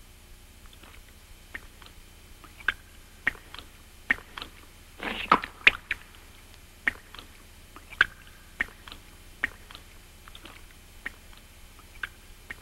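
A wolf lapping water from a pool: a string of short wet laps and drips, spaced roughly a second apart, with a quicker, louder flurry of laps about five seconds in.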